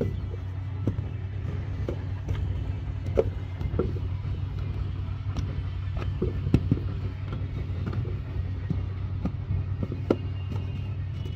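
Wet clay being slapped and pressed into a wooden brick mould by hand, with scattered sharp knocks of the mould and clay against the ground, over a steady low hum.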